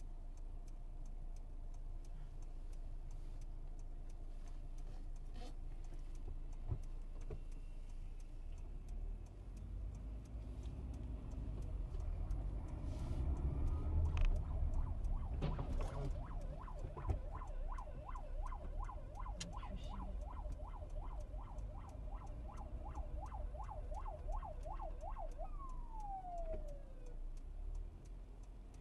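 Police car siren warbling fast, about three rises and falls a second, then winding down in a falling glide and stopping near the end. Under it runs the steady low rumble of road and engine noise inside the car's cabin.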